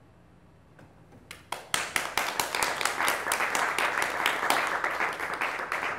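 Small audience applauding. After a quiet start, a few single claps come about a second in, then steady clapping fills the rest.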